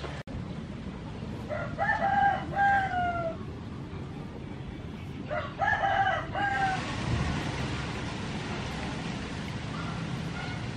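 A rooster crowing twice, each crow a few linked notes ending in a long falling note. Fainter calls follow near the end over a steady background hiss.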